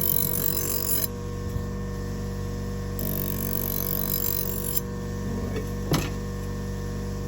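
Electric buffer motor running steadily with a steady hum, driving a rock-hard felt wheel charged with white compound while a knife edge is lightly stroked on it to strip the burr, with stretches of faint high hiss. A single sharp click about six seconds in.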